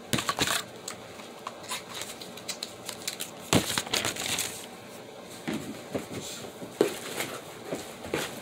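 Rustling and crinkling of makeup packaging being handled and taken out of a box, with scattered clicks and taps and one louder knock about three and a half seconds in.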